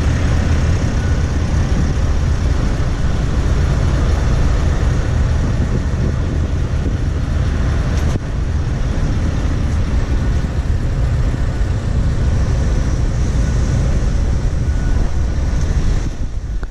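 Scania S650's V8 diesel engine idling steadily with a low rumble.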